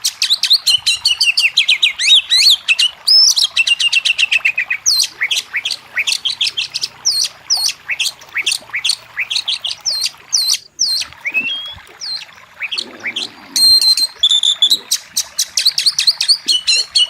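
Oriental magpie-robin singing a fast, varied song of sharp chirps and whistles, broken by quick strings of rapidly repeated notes, with barely a pause throughout.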